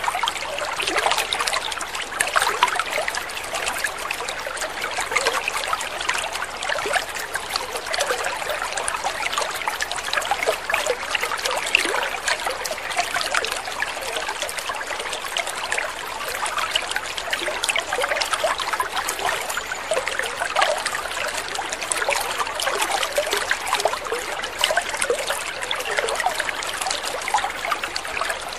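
Water trickling and splashing steadily, a continuous patter of many small splashes with no pauses.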